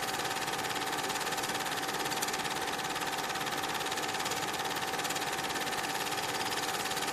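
Cine film projector running: a steady, fast mechanical clatter with a constant whine.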